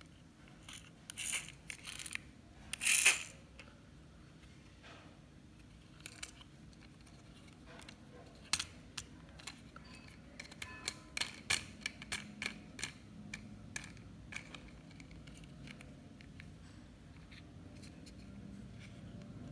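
Handling noise from a small toy helicopter turned over in the hands: scattered light clicks and rattles of its plastic parts. A louder scraping rustle comes about three seconds in, and a quick run of clicks comes around eleven to thirteen seconds.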